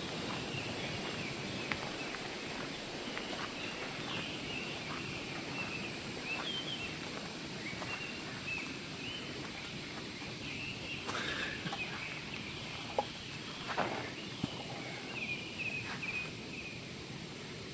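Small birds chirping in short, repeated high phrases over a steady rushing background hiss, with a few sharp snaps or clicks in the second half.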